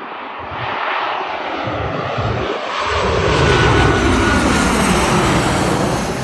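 Airliner's engines roaring loudly as it passes close by, swelling to a peak about three to four seconds in with the pitch falling as it goes past. Gusts of wind rumble on the microphone.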